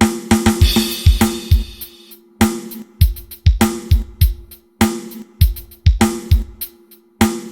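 Drum kit played through a PA sound system for a sound test: a steady kick-and-snare beat, with a quick run of kick hits and a cymbal crash ringing for about two seconds at the start.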